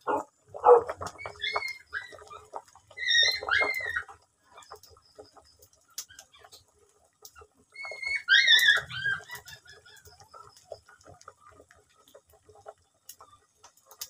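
Animals calling: a couple of short loud barks near the start, then high-pitched calls that bend in pitch, in groups around two, three and a half, and eight to nine seconds in.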